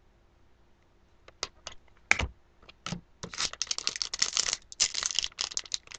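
A few scattered clicks and a knock, then from about three seconds in a fast run of crinkling and rustling: a foil hockey-card pack being torn open and its cards handled.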